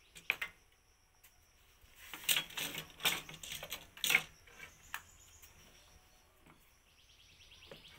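Hard plastic clicks and rattles of a battery-powered knapsack sprayer's hose fitting and cap being handled and twisted, with one click near the start and a quick run of clicks about two to four seconds in.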